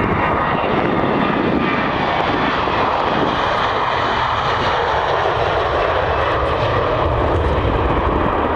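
Boeing 737-300 jet's two CFM56-3 turbofan engines at takeoff thrust, a loud steady rush of jet noise as the airliner rolls down the runway and lifts off about four seconds in.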